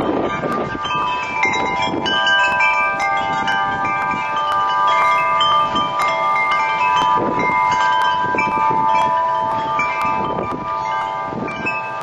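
Wind chimes ringing irregularly at several pitches, their notes overlapping and sustained, with gusts of wind buffeting the microphone.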